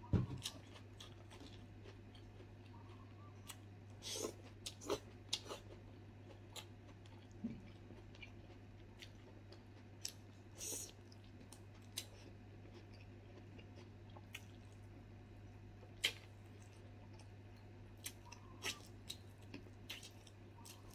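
A person biting and chewing boiled pig meat close to the microphone: scattered short wet smacks and crunches at irregular intervals. A low steady hum runs underneath.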